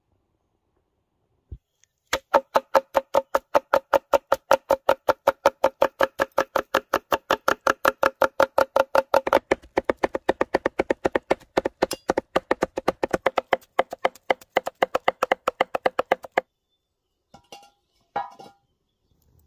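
Two cleavers chopping peppers and aubergine on a wooden cutting board: a fast, even run of knocks that stops suddenly, followed by a few lighter knocks.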